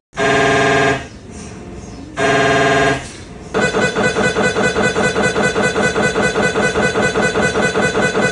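MRI scanner noise: two loud buzzes, each under a second long. These are followed by a steady rapid knocking at about five beats a second, the sound of the gradient coils switching during a scan sequence.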